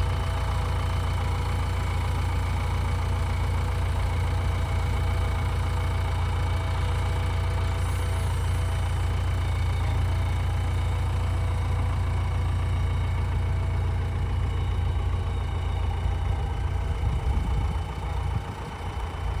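Heavy diesel engine running steadily at low speed, a deep even hum that grows uneven near the end.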